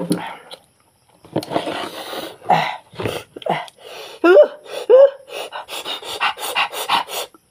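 A man eating noisily with his hands, gnawing meat off a cooked goat leg: wet chewing and lip-smacking, with two short pitched grunts about four and five seconds in, and quick smacks at about four or five a second near the end.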